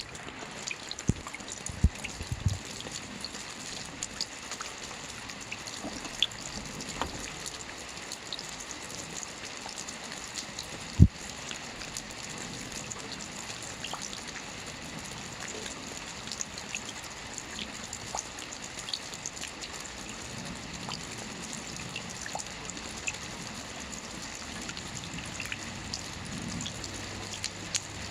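Steady rain with water drops falling and dripping, many small separate drips ticking over the constant patter. A few stronger drops land near the start, and one sharp, louder knock about eleven seconds in.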